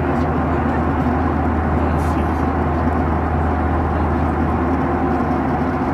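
Steady airliner cabin noise in flight: the constant drone of the engines and rushing air with a low hum, unchanging throughout.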